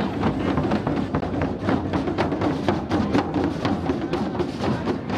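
Street procession percussion: drums, tambourines and shakers played together in a brisk, dense beat.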